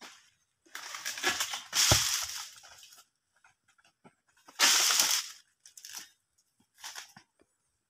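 Cut oil palm frond sliding down the trunk and crashing to the ground, a long rustle of leaves with a heavy thud about two seconds in. A second loud crunching rustle follows a few seconds later, then a few shorter rustles.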